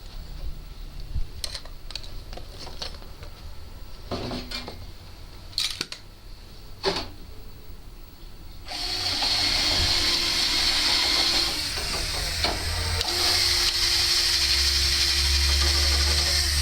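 A few sharp clicks and knocks, then about halfway through a power drill starts and runs steadily, drilling into a door to fit a new lock.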